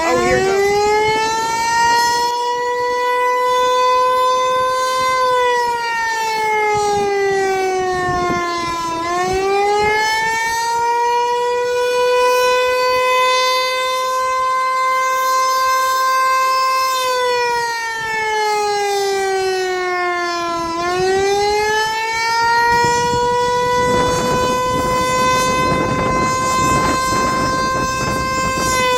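Federal Signal Eclipse 8 electronic fire siren sounding its Attack signal: it starts up with a rising tone, then a loud wail that holds, dips in pitch and climbs back, about every twelve seconds.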